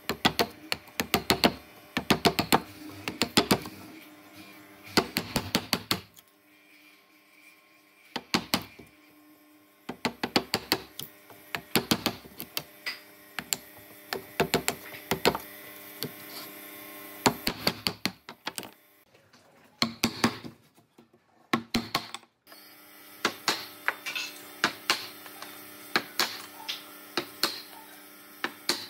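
Wooden mallet striking a chisel in runs of rapid blows, chopping out the waste between saw kerfs in pine boards as chunks of wood split away. The runs are broken by short pauses, with a longer lull about two-thirds of the way through.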